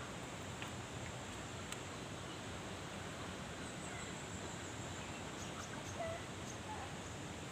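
Steady rush of flowing canal water, with a thin, high, steady tone above it and a few faint bird chirps near the middle and end.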